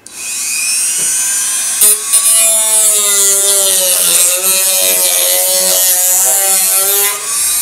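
Wen rotary tool spinning a small cutoff wheel and cutting into a cardboard box. A high whine starts suddenly and rises as the motor spins up, then wavers in pitch as the wheel cuts under load.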